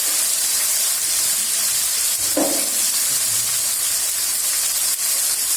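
Finely chopped tomatoes sautéing in hot coconut oil with shallots, spices and curry leaves: a steady sizzle.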